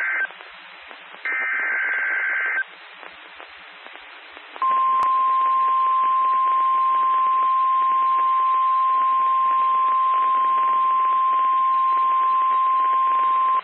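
NOAA Weather Radio emergency alert: two short buzzy SAME digital header bursts, the first cut off at the start and the second about a second later, with radio static between them. Then, about four and a half seconds in, the steady 1050 Hz weather-radio warning alarm tone holds for about nine seconds, signalling a warning broadcast.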